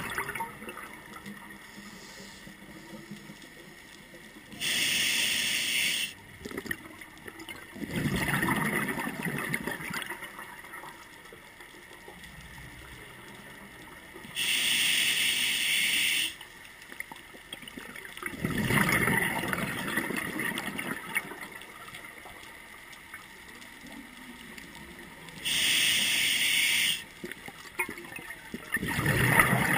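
Scuba diver breathing through a regulator underwater: a hissing inhale of about a second and a half, then a few seconds later a longer bubbling, gurgling exhale, the cycle repeating about every ten seconds, three breaths in all.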